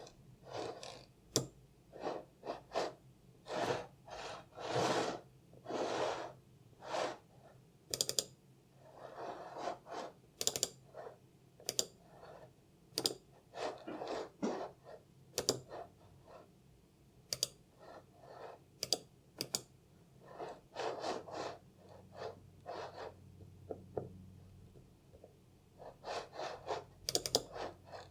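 Apple Magic Mouse clicking, single clicks and quick double clicks at an irregular pace, mixed with several longer swishes of the mouse sliding across a desk.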